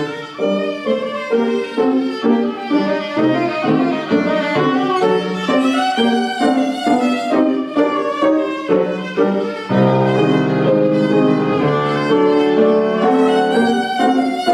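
Violin played by a child, a fast stream of quick, even running notes, with a few held lower notes about ten seconds in.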